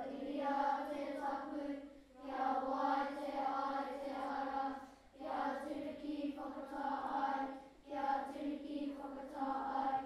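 A group of children singing together in unison, in held phrases of two to three seconds with short breaks between them.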